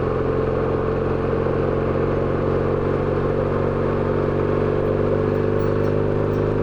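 BMW R1200GS's boxer-twin engine running at steady revs.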